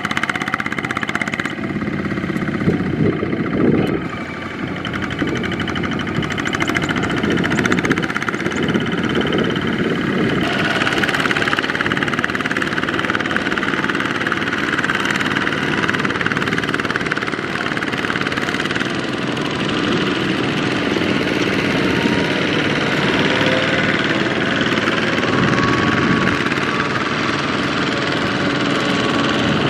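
Single-cylinder diesel engine of a Kubota ZT155 power tiller running steadily while pulling a loaded rice trailer through sticky mud, its sound growing a little louder and busier about ten seconds in.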